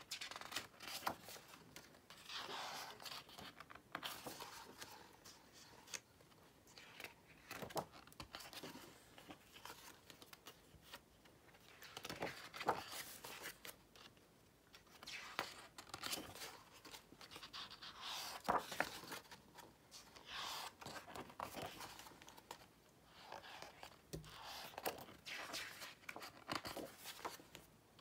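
Pages of a large hardcover photo book being turned by hand: paper rustling and swishing every couple of seconds, with small flicks and taps as each page is lifted and laid flat.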